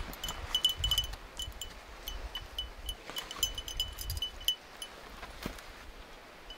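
A small metal bell on a German Shepherd's gear jingling in quick, irregular rings at one fixed pitch as the dog shifts about, dying away in the last second or so.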